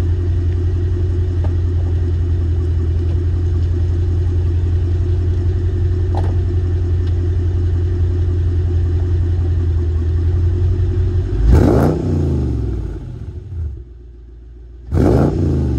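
Mercedes-Benz CL55 AMG's supercharged 5.4-litre V8, breathing through long-tube headers, no catalytic converters and Borla mufflers, idling steadily with a low exhaust note. About eleven and a half seconds in, and again near the end, it is revved in a sharp blip, and the pitch falls as the revs drop back each time.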